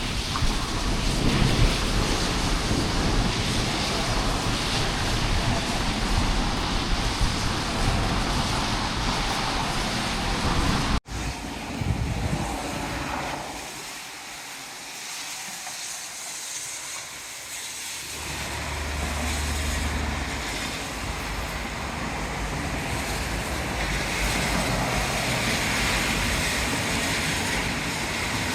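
Heavy rain and strong wind in a thunderstorm: a steady, dense hiss with a deep low rumble underneath. About eleven seconds in it cuts out abruptly, comes back quieter and thinner for a few seconds, then builds up again.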